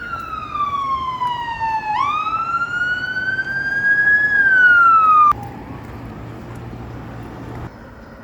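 Emergency vehicle siren wailing in slow sweeps: it falls, jumps back up about two seconds in, rises and falls again, then cuts off suddenly after about five seconds. A low steady hum remains afterwards.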